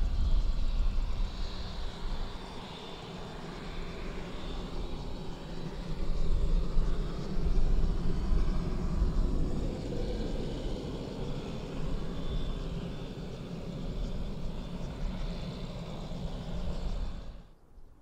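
Air Tractor AT-802AF Fire Boss's turboprop engine and propeller running as the floatplane taxis: a steady drone with a thin high whine, swelling and easing in level. It cuts off suddenly near the end.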